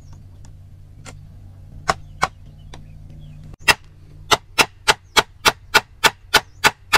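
Sharp knocks on bamboo as an upright bamboo pole is driven into a hole cut in a bamboo crosspiece of a chair frame. A few single knocks come first, then a little past halfway a steady run of blows begins, about three a second.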